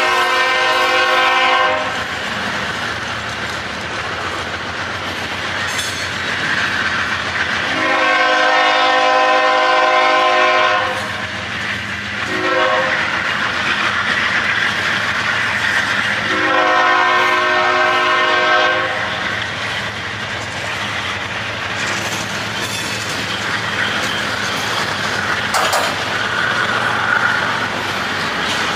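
Diesel freight locomotive air horn sounding long, long, short, long: the grade-crossing signal. It is heard from the head end while open hopper cars rumble and clack past on the rails. The first long blast is at the very start, the second about eight seconds in, the short one about a second after that, and the last long one about seventeen seconds in.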